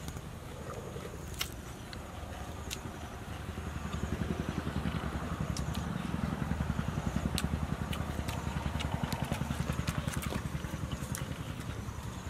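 A motor vehicle engine running, a low pulsing hum that grows louder about four seconds in and eases off near the end, with scattered sharp clicks over it.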